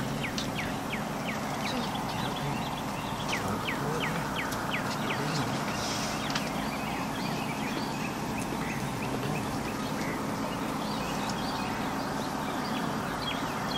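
Feral hogs grunting as they feed, with birds calling in a run of short, falling chirps, two or three a second, busiest a few seconds in.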